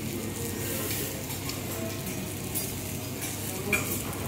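Wagyu beef and fat sizzling on a hot steel teppanyaki griddle, with the chef's knife and carving fork scraping against the plate. One sharper metal clink comes near the end.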